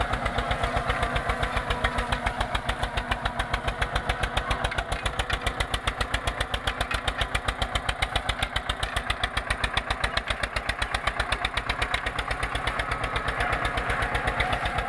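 Eicher 242 tractor's diesel engine running steadily with an even, rapid pulsing beat while it pulls a 16-disc harrow through the soil.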